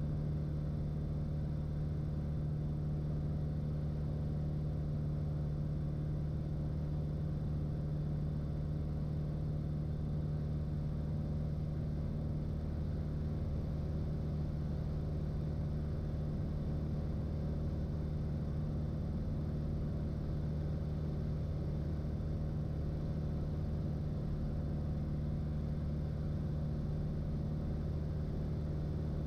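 Steady drone of a single-engine light aircraft's piston engine and propeller, heard inside the cockpit, holding one even pitch throughout.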